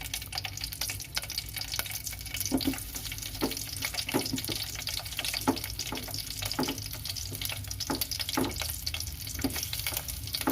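Crushed garlic and ginger sizzling and crackling in hot cooking oil in a pan, sautéing, with light knocks about once a second.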